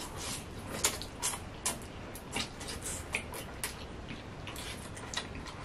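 Eating sounds: irregular small clicks and scrapes of plastic forks in foam takeout boxes, with chewing of noodles and meat.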